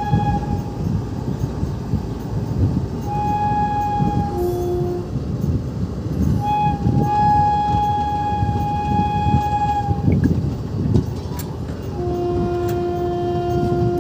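Passenger train running, heard from the side of the coach: steady rumble and wheel clatter. A train horn sounds several blasts over it: a short one about three seconds in, a short lower two-note blast right after, a long higher blast from about six to ten seconds in, and another lower two-note blast starting two seconds before the end.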